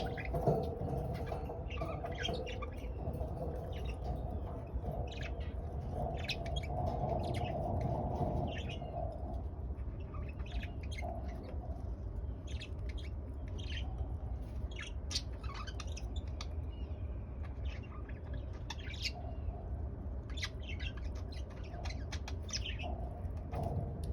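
Pet budgerigars chirping: many short chirps scattered throughout, over a steady low hum.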